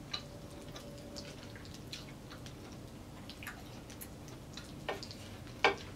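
Celery stick stirring hot sauce into a thick cheese sauce in a bowl: faint, scattered wet clicks and squelches, with two sharper clicks about five seconds in.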